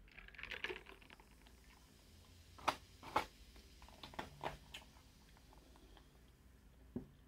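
Chewing and wet mouth sounds of a person eating, with a handful of sharp clicks scattered through the middle and one more near the end.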